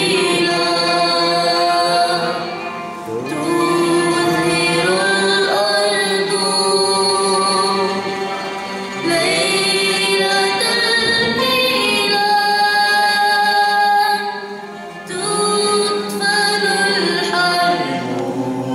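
A girl singing a Christmas song solo into a microphone, in long held phrases with brief breaks between them.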